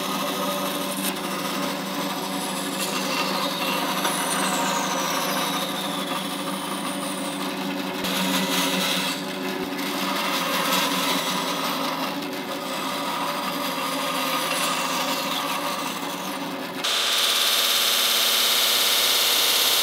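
Band saw cutting wooden knife-handle scales: a steady motor hum under the rasp of the blade through the wood. About seventeen seconds in, it changes abruptly to a belt grinder sanding the wood, a louder, brighter, steady hiss.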